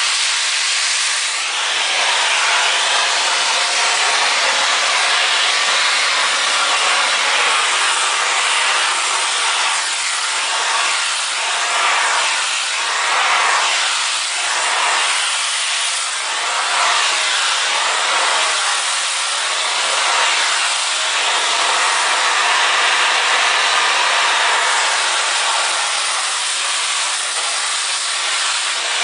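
Vacuum cleaner running while it is drawn over a dog's coat. Its steady rushing sound wavers up and down in pitch again and again, most through the middle stretch.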